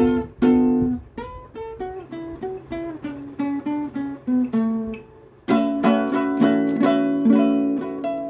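Acoustic plucked string instrument played as an improvised solo. Single plucked notes step mostly downward, and after a short pause about five seconds in the playing turns fuller, with ringing chord notes over a steady low note.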